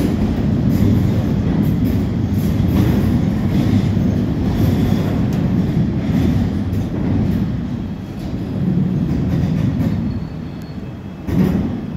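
Two coupled South Western Railway Class 450 Desiro electric multiple units rolling slowly past along the platform as they arrive, wheels rumbling with a repeating clickety-clack over the rail joints. The rumble fades after about ten seconds as the train slows, with a brief louder rush near the end.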